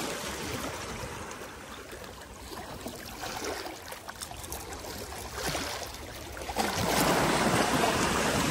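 Small sea waves washing and lapping over rocks at the shoreline, with some wind, growing louder about two-thirds of the way in.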